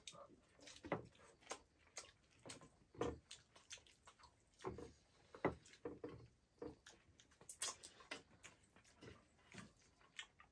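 Chewing and mouth sounds of eating pork leg: quiet, irregular smacks and clicks, about one or two a second.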